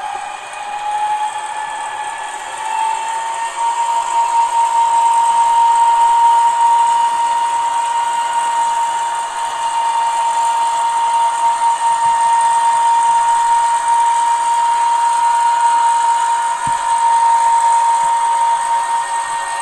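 1:32 Gauge 1 model Köf II diesel shunting locomotive running fast along the track, its ESU LokSound 5L decoder playing the diesel engine sound through the onboard speaker. A steady high whine climbs a little in pitch over the first few seconds, then holds.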